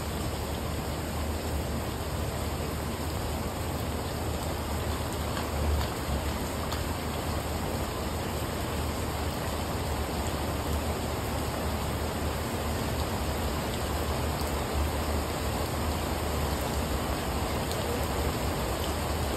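Steady rain falling on a brick patio and garden plants, an even hiss, with a low rumble underneath that swells briefly about six seconds in.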